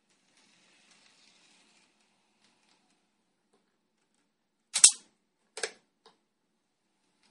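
Two sharp clicks close together about five seconds in, the first the louder, followed by a faint third tick; a faint hiss in the first two seconds.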